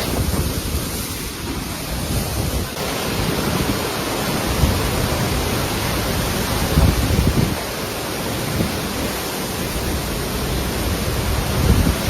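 Hurricane storm noise: strong wind blowing steadily, with gusts buffeting the microphone several times.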